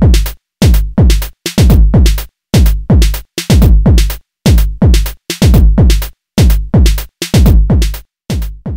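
Loud electronic intro music: a run of deep hits, each sliding down in pitch, in a stop-start rhythm with short silent gaps between them.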